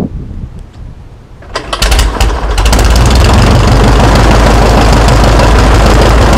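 A light aircraft's piston engine hand-propped to a start on the first pull. After a quieter second and a half it fires a few ragged strokes, then catches and runs steadily and loudly at low throttle.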